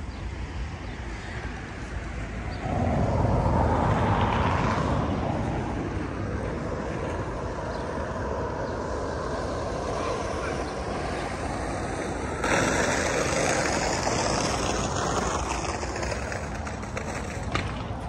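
Town street ambience with passing traffic: a vehicle goes by, loudest about three to five seconds in, and the traffic noise rises again suddenly past the middle.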